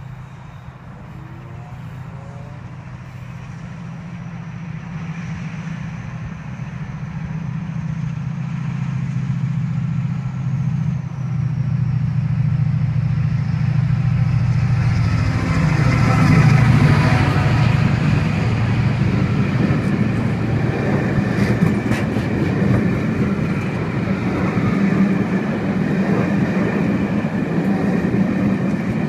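Class 68 diesel-electric locomotive's Caterpillar V16 engine approaching at speed, its drone growing steadily louder and dropping in pitch as it passes about halfway through. Passenger coaches then run past, with wheels clattering over the rail joints.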